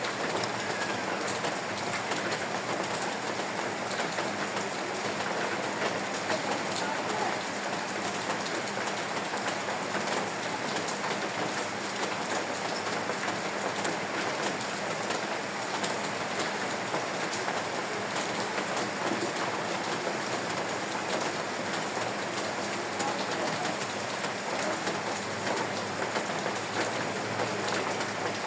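Steady rain falling, a dense, even patter with no let-up and a faint low hum underneath.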